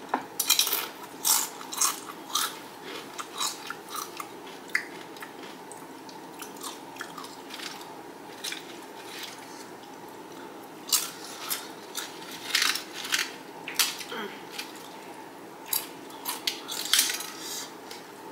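Doritos tortilla chips being bitten and chewed, in clusters of sharp crunches near the start, again around two-thirds of the way in and once more near the end, with quieter chewing between.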